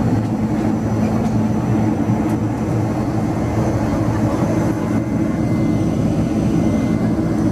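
Steady roar of a Boeing 767-300's jet engines and rushing air, heard inside the passenger cabin in flight.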